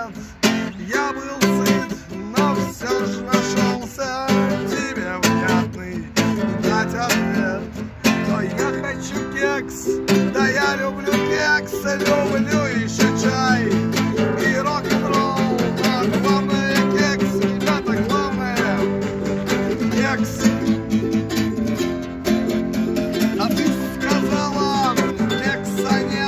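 Classical acoustic guitar and ukulele strummed together, with a man singing along.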